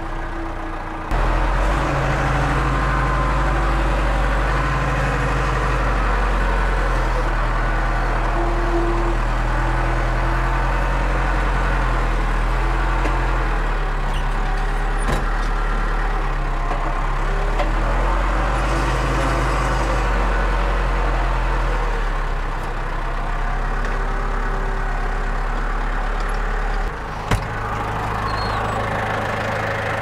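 Tractor engine running steadily, heard from inside the cab, its note shifting a few times. A sharp knock comes near the end.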